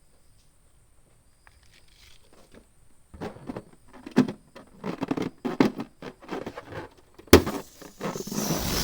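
Rubber balloons being handled, squeaking and rustling in a string of short bursts. Then comes one sharp snap, followed by a loud rushing hiss that cuts off suddenly.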